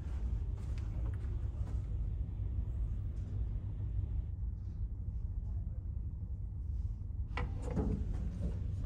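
Steady low hum of a passenger ferry's onboard machinery. About seven seconds in, a cabin door's latch and handle click and knock several times as the door is opened.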